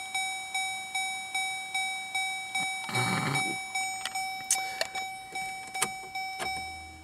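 2004 Chevrolet Malibu Classic's dashboard warning chime dinging over and over, about twice a second, stopping near the end. A few light clicks and a short rustle about three seconds in.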